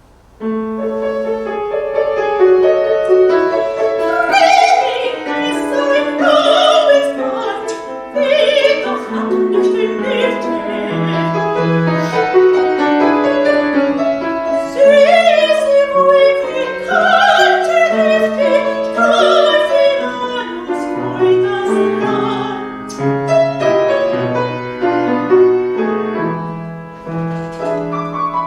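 Soprano singing in classical operatic style with vibrato, accompanied by piano. The piano starts just after the opening and the voice comes in a few seconds later.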